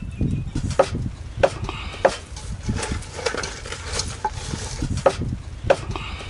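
Hands rubbing seasoning into a whole fish in a stainless steel pot, with sharp knocks at a steady pace of about one every two-thirds of a second that thin out in the middle.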